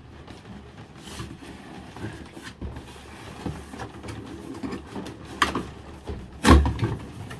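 A plastic tool case being worked out of its cardboard box: scraping and rustling with scattered knocks and clicks, the loudest knock about six and a half seconds in.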